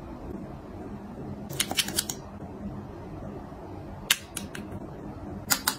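Makeup packaging handled close to the microphone: three short clusters of sharp clicks and taps, about a second and a half in, around four seconds in as a lip gloss wand is drawn from its tube, and again at the end. A steady low hum runs underneath.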